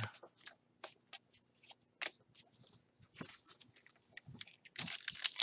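Baseball trading cards flicked through by hand, with light paper clicks and slides. About five seconds in, the wrapper of a fresh card pack crinkles loudly and tears open.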